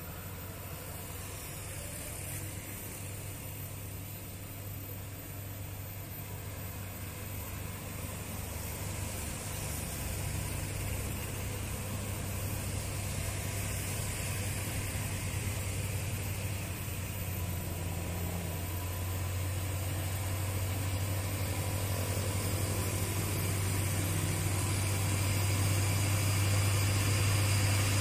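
Diesel engine of a heavy cargo truck climbing a steep hill, a steady low drone that grows steadily louder as it approaches.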